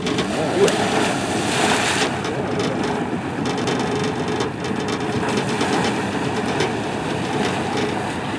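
Boat's outboard motor running steadily, mixed with water rushing and splashing from a hippo charging through the shallows. The rushing is brightest for about the first two seconds.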